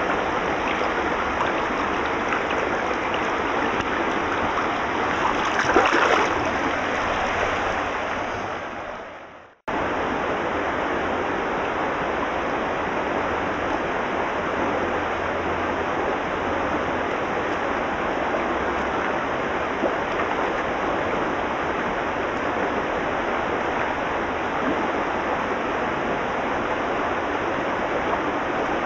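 Small rocky creek running and gurgling steadily over stones. About six seconds in there is a brief louder splash in the water as the trout is let go by hand. The sound fades out and cuts off just before ten seconds in, then the steady rush of the creek resumes.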